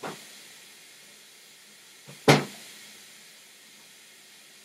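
Kitchen tap running into a sink as a faint, steady hiss, with a short knock at the start and a sharp clunk about two seconds in, just after a smaller knock.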